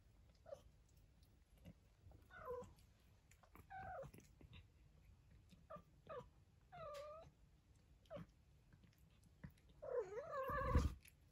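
Four-week-old kittens mewing in a string of short, high-pitched mews, about nine of them. Near the end comes a longer, louder mew, along with a low thump.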